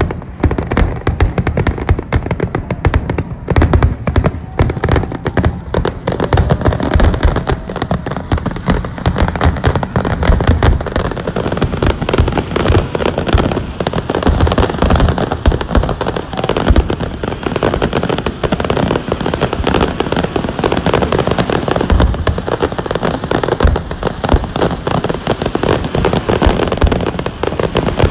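Aerial firework shells bursting in rapid succession, a dense, unbroken barrage of booms and crackles with many bursts overlapping each second.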